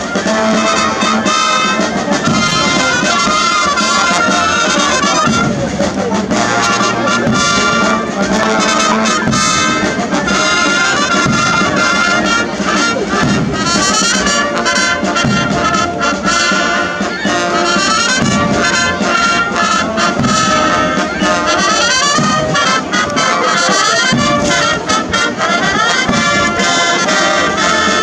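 Brass band playing, a continuous tune with trumpets and trombones.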